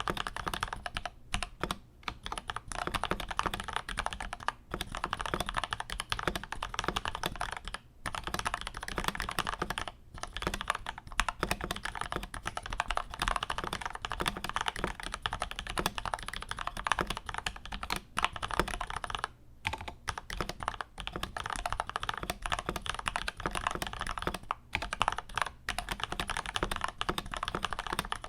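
Continuous fast typing on an Akko 5075S mechanical keyboard with lubed and filmed Gateron Milky Yellow linear switches on a polycarbonate plate, dense key clacks with a few brief pauses.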